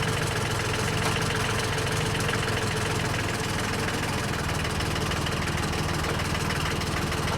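Diesel engine of a hydraulic lifting machine running steadily at idle.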